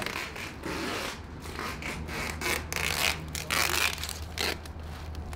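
Rubbing and scraping of wrapping material being handled, in irregular rustles, over the low steady hum of a forklift's engine that sets in about a second in.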